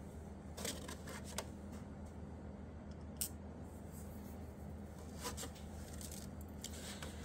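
Scattered light clicks of small glass scraps being set down and nudged into place on a board, over a faint steady low hum.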